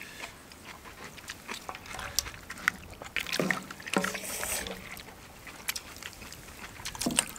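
People eating ramen soup: intermittent slurping and wet mouth sounds, with scattered light clicks of utensils on bowls.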